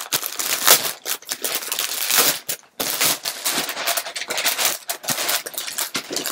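Plastic packaging crinkling and rustling loudly as it is handled, in rapid irregular crackles with a brief lull about two and a half seconds in.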